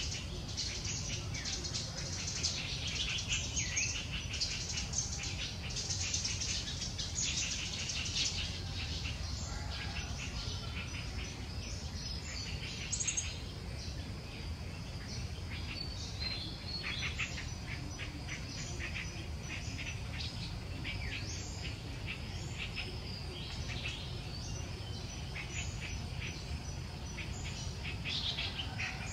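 Small birds chirping and twittering busily and without pause, over a steady low rumble.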